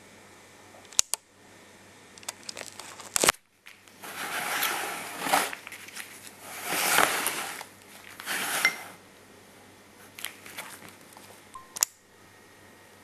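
Knife slicing through a block of homemade lard soap on a cutting board: three drawn-out scraping strokes, with a few sharp knocks of the blade or block on the board.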